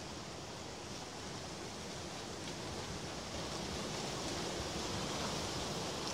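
Steady outdoor background hiss that grows slightly louder, with a few faint ticks.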